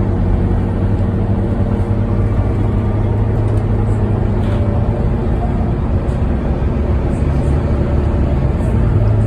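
Volvo B9TL double-decker bus with a loud 'hoover': its engine and cooling fan running as one steady drone, without change in pitch or level.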